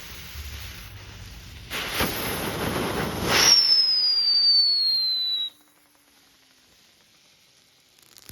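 Novelty landing-craft firework going off: a rushing hiss of sparks starts about two seconds in and grows louder, then a whistle gliding down in pitch joins it. Both cut off suddenly. Crackling starts at the very end.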